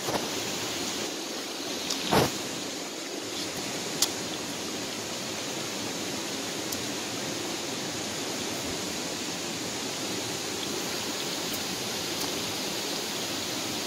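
Steady rushing noise, with a short knock about two seconds in and a sharp click about four seconds in.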